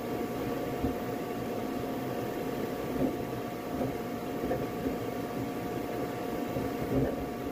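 Flashforge Adventurer 5M Pro 3D printer running mid-print: a steady whir of fans and motors with a constant high whine, and small irregular bumps in loudness as the print head moves.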